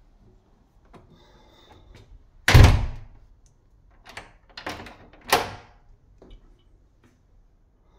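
A door shut with a loud thud, followed by a few clicks and a second sharp knock as its lever handle and latch are worked.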